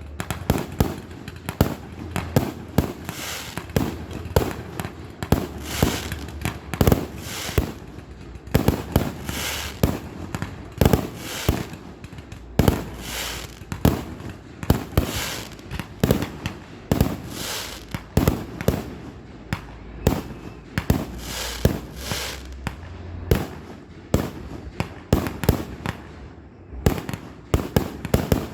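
A long run of sharp pops and cracks, several a second at an uneven pace, some much louder than others.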